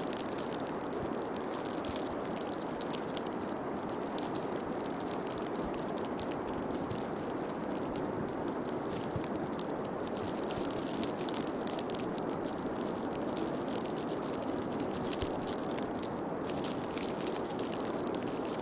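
Steady rushing noise with fine, irregular crackling on top, even in level throughout.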